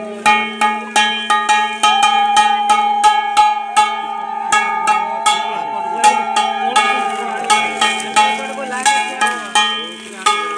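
Devotional music: ringing metal percussion struck about three times a second over a steady drone, with a sliding melody line joining from about eight seconds in.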